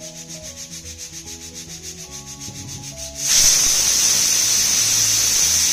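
Pressure cooker whistle: steam sputters out under the weight in a fast, even flutter, then about three seconds in it breaks into a loud, steady hiss of steam. This is the fourth whistle, counted to time the pressure cooking of the kidney beans.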